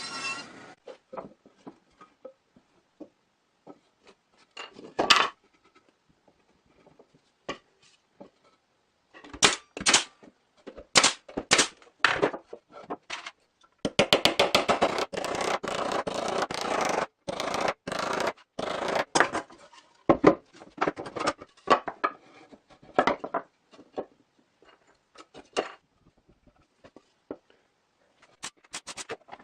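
Hand work on wooden sawhorse parts: scattered knocks, clicks and scraping of wood, with a few seconds of rapid clicking and rasping near the middle.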